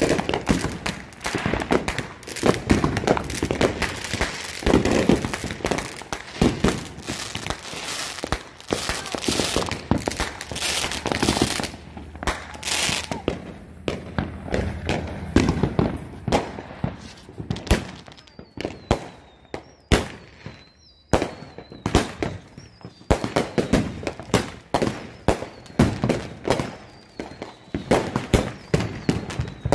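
Fireworks going off in quick succession: a dense run of sharp bangs and crackles. It thins out in the middle, where a thin wavering whistle is heard, then thickens again near the end.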